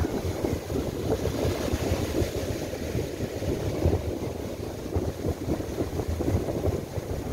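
Strong gusty wind buffeting the microphone in uneven low rumbles, over the hiss of surf breaking on the beach.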